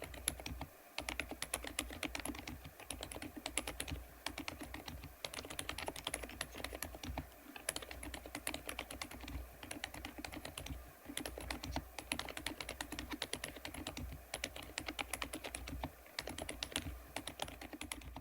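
Fast typing on a Thinkway TAUCHE.F 101 full-size keyboard with Poached Egg silent linear switches in a PC plate: rapid keystrokes in runs, broken by short pauses every second or two.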